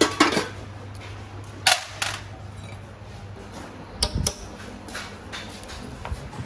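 Sharp metallic clicks and knocks, about eight in all and spaced irregularly, from hand tools working on the diesel engine's fuel-tank bracket and sheet-metal parts. A steady low hum runs under them.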